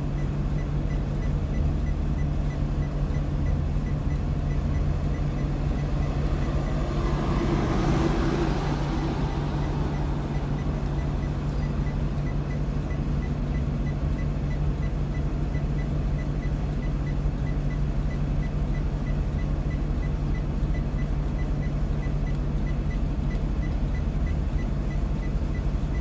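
School bus diesel engine idling steadily, heard from inside the cab, with a light regular tick about twice a second. A broader rush of passing traffic swells and fades around eight seconds in.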